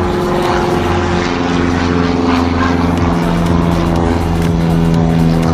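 Single-engine Cessna 150-series trainer passing overhead, its piston engine and propeller giving a steady droning hum.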